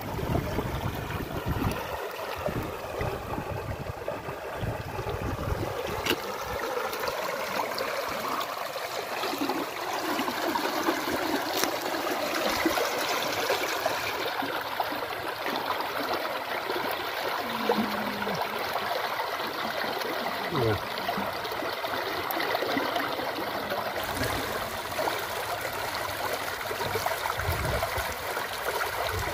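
Shallow water splashing and trickling as hands and a metal bowl scoop fish out of a net trap, a steady watery rush with a few soft knocks.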